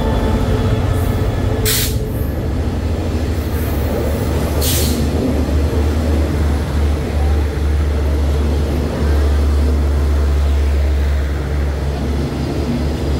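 Diesel-hauled passenger train of the State Railway of Thailand moving through the station: a steady, loud low rumble of the locomotive and rolling coaches, with two short hisses about two and five seconds in.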